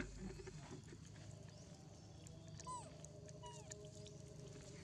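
Faint outdoor background with two short, high animal calls, each falling in pitch, a little under a second apart near the middle.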